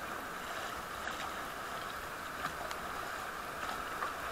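Steady rush of river water around an inflatable raft, with paddle blades splashing into the current as the crew paddles toward rapids.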